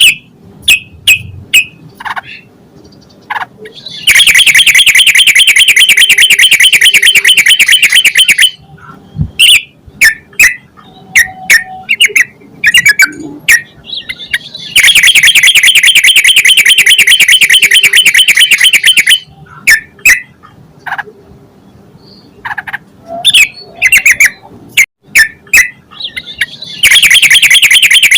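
Recorded song of a sooty-headed bulbul (trucukan): short separate chirping notes broken by three long, very fast rattling trills of about four seconds each.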